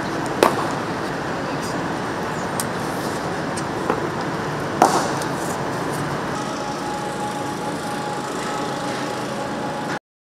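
Outdoor ambience of a cricket net practice, a steady wash of background noise broken by sharp knocks of cricket balls being struck: one about half a second in, a smaller one near four seconds and another just before five seconds. The sound cuts off suddenly near the end.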